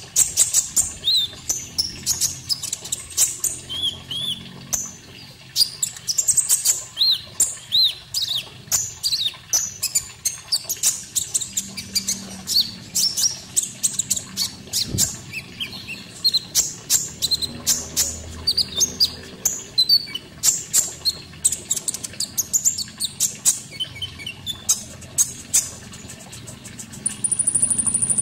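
Konin songbird singing fast strings of chirps and short whistled notes over a background of water sound, as in a birdkeepers' masteran recording used to teach caged birds.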